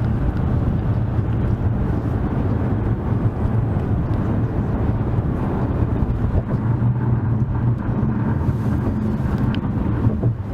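Steady low rumble of a vehicle in motion, with little high-pitched sound over it.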